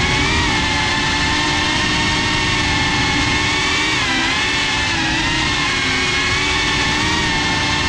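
GEPRC CineLog 35 cinewhoop's brushless motors and ducted propellers whining in flight, the pitch wavering up and down as the throttle changes and dipping briefly about four seconds in. A steady rushing noise of prop wash and wind runs underneath.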